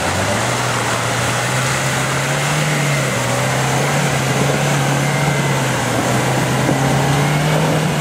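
Bronto Rys (Lada Niva-based 4x4) four-cylinder engine running steadily under load as the vehicle pulls through deep mud, its pitch stepping up slightly about half a second in and then holding.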